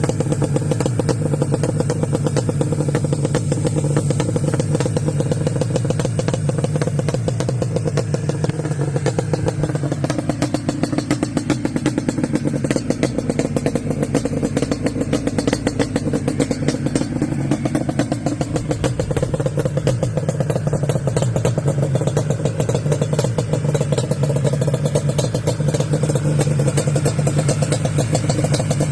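Yamaha Banshee's 350 cc twin-cylinder two-stroke engine running steadily at one speed, with a rapid, even exhaust pulse.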